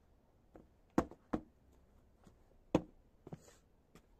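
Several sharp, short knocks, three of them louder: about a second in, again just after, and near three seconds in, with a brief scrape in between.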